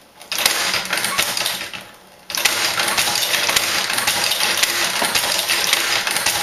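Tippmann Boss hand-operated leather stitcher sewing through thick holster leather: rapid mechanical clicking and clacking of the lever-driven needle and feed, stitch after stitch. A short run of stitching is followed by a brief lull about two seconds in, then steady stitching.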